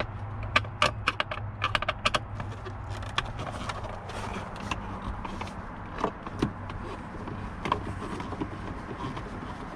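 Small clicks and rattles of a part being unscrewed and worked loose by hand at a car's steering column, a quick run of clicks in the first two seconds and then scattered ones, over a low steady hum.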